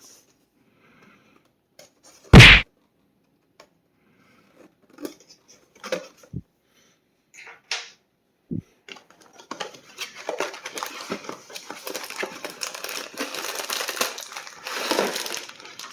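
Handling a small cardboard box while unpacking it: a loud thump about two seconds in and scattered taps and clicks, then from about ten seconds a long stretch of crinkling as the plastic parts bags are taken out.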